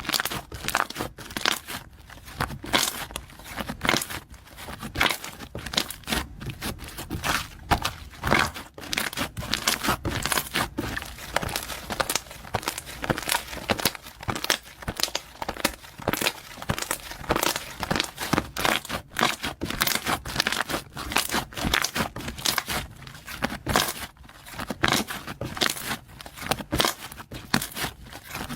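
Slime being squeezed, stretched and pressed by hand, giving a dense, irregular run of sharp sticky clicks and pops.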